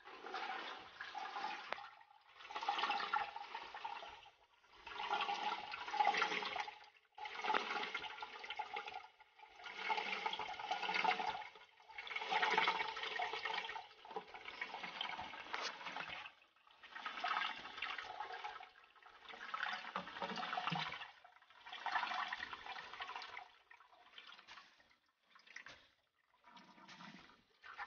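Water rushing in a Kohler concealed toilet cistern, in over a dozen surges of one to two seconds with short breaks between, shorter and fainter near the end.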